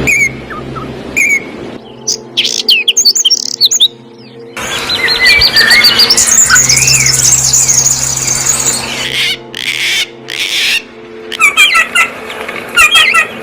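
Songbirds chirping and singing in short spliced recordings: quick sharp chirps, a run of whistled notes that rise and fall, and bursts of rapid repeated calls, some of them over a steady low hum.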